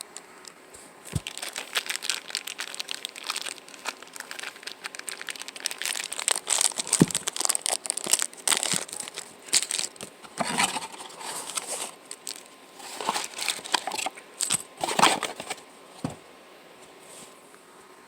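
Packaging of an EMG 81 pickup kit crinkling in the hands as the parts are taken out, in irregular spurts, with a few sharp clicks of small parts knocking.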